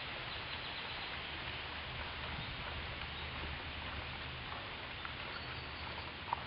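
Faint splashing of paddles from a two-person racing canoe, over a steady outdoor background hiss, with one short sharp sound just before the end.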